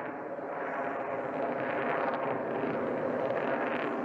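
F-22 Raptor fighter jet's engines heard from the ground as it flies a high-alpha loop: a steady rushing jet noise that swells slightly partway through.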